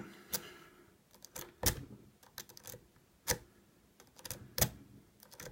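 Lock pick working the pin tumblers of an old 30 mm Bell padlock by zipping: a series of sharp, irregular metallic clicks as the pick snaps across the pins under tension.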